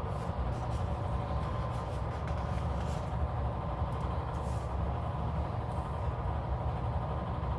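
Steady low background hum with a few faint light ticks over it.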